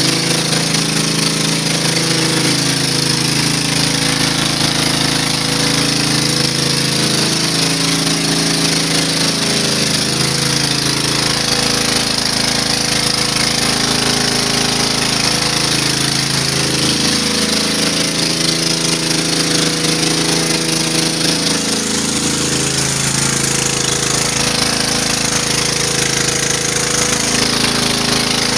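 Pressure washer running steadily, with the hiss of water jets spraying onto concrete under a 15-inch rotary surface cleaner as it is pushed across the patio.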